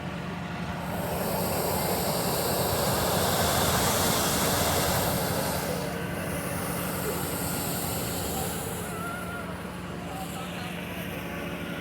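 Hot-air balloon propane burner firing in two long hissing blasts, the first starting about a second in and lasting around four seconds, the second just after it, over a steady low engine hum.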